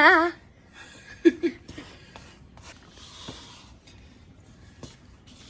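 Faint clicks and a soft scrape of a utensil stirring whipped topping in a mixing bowl. A woman's high, rising "ooh" trails off at the very start, and a short giggle-like vocal sound comes about a second and a half in.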